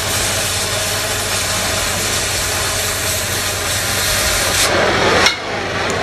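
Oxy-acetylene cutting torch hissing steadily as its oxygen jet cuts through thick-walled steel pipe, swelling briefly near the end and then cutting off sharply as the cut finishes.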